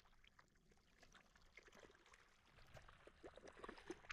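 Near silence, with faint soft clicks that come more often in the second half.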